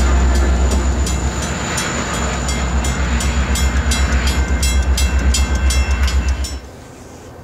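A GO Transit MP40PH-3C diesel locomotive pushing at the rear of a passenger train, its engine rumbling low as it pulls away from the crossing. A grade-crossing bell rings rapidly over it. Both cut off suddenly near the end.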